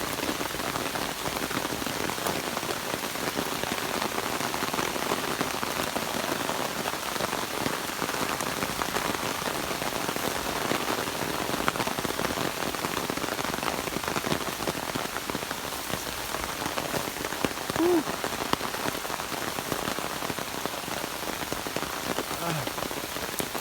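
Heavy rain falling hard and steadily, a dense, even patter of drops on the ground and foliage.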